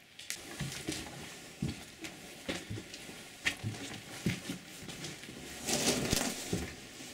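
Footsteps and scuffing, uneven steps of about one to two a second, with a longer, louder scuffing rustle about six seconds in.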